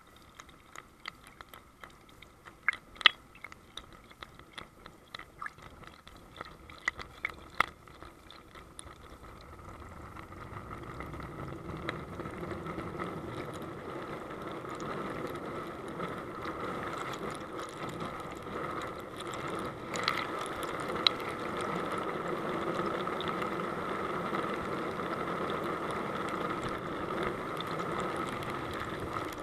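Water from a fountain jet rushing over an action camera's waterproof plastic housing, heard muffled through the case. For the first third there are only scattered clicks and knocks of the case being handled; then the rushing water swells and stays steady.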